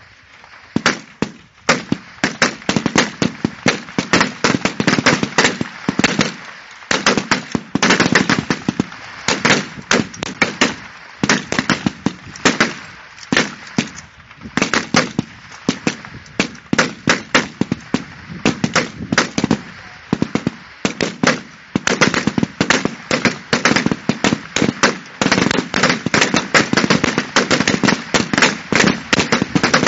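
Rifle fire from many competitors shooting along a match firing line: sharp shots overlapping irregularly, several a second, broken by a few short lulls.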